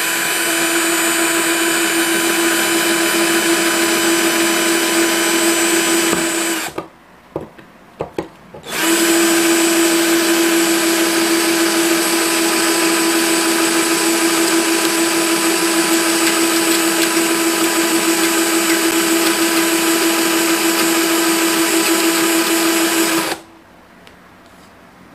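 Handheld power drill with a 4 mm concrete (masonry) bit boring into a bathroom wall tile, its motor running at a steady pitch. It stops for about two seconds partway, with a few clicks, then runs again until near the end. The masonry bit makes little headway in the tile.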